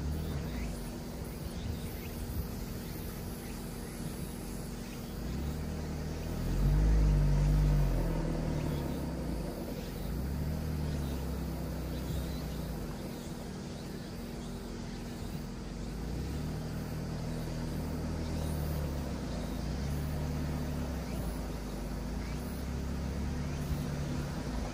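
Mitsubishi Delica D:5's 2.2-litre clean-diesel engine pulling the van along a forest road, with a steady rumble of road noise. The engine note rises and falls several times, loudest about seven seconds in.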